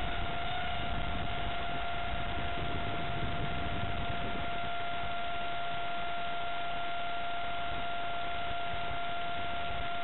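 Electric ducted fan of an RC Stryker flying wing running at low throttle: a steady, even whine over a hiss of wind.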